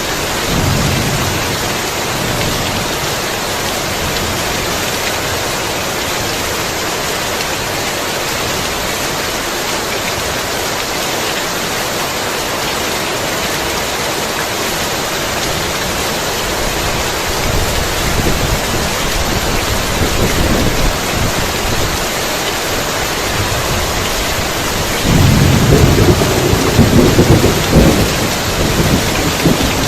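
Heavy rain falling steadily, with rolling thunder. There is a short low rumble about a second in, a longer rumble past the middle, and the loudest roll of thunder near the end.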